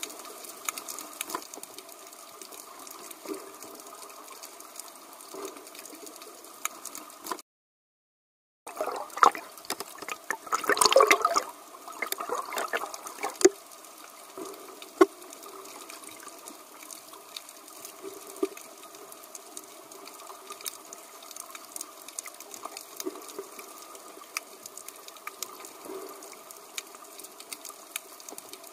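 Underwater ambience on a scuba dive: a steady hiss with scattered clicks and crackles. About eight seconds in the sound drops out for a second, then a louder rush of bubbling follows for a few seconds, typical of a diver's exhaled regulator bubbles.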